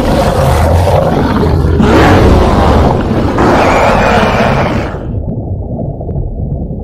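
Custom giant-monster (kaiju) roar sound effect: one long, loud, rasping roar that surges twice more before dying away about five seconds in, leaving a low rumble.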